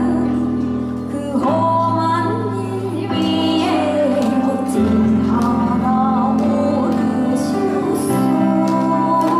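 A young woman singing live into a handheld microphone, her voice amplified, over a sustained instrumental accompaniment whose chords change every second or two.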